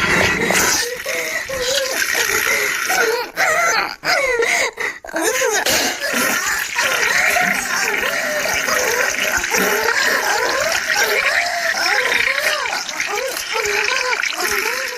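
Comedy sound effect of wet farting and splattering diarrhea mixed with a moaning voice whose pitch wavers up and down.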